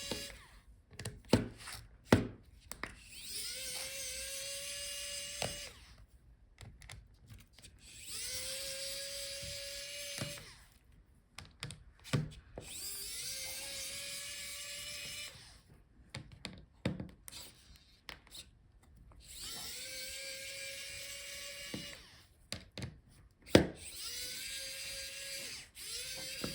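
A small electric screwdriver backing out the laptop's hinge screws: its motor spins up quickly and runs steadily for two to three seconds at a time, about five times, with clicks and taps of the screws and bit in between.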